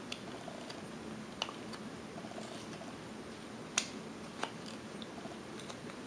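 Whittling knife slicing into basswood: soft cuts with a few sharp clicks as the blade shears through, the loudest about four seconds in.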